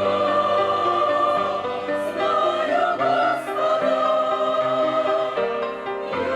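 Church choir singing a Russian hymn in held chords, the harmony shifting every second or so.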